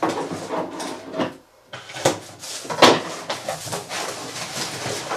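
Cardboard shipping box being opened by hand: flaps pulled back and packing tape torn, a run of rustling and scraping with two sharper, louder sounds about two and three seconds in.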